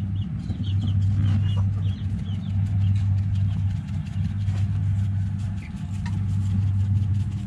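A motor running steadily with a low hum.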